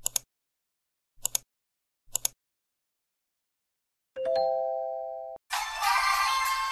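Title-card sound effects: three quick double clicks about a second apart, then a chime of a few tones together that rings and fades out. Upbeat music starts near the end.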